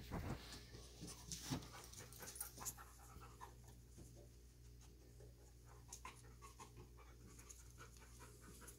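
A working search dog panting faintly with its tongue hanging, a sign that it is tiring and starting to burn out, with a few light ticks along the way.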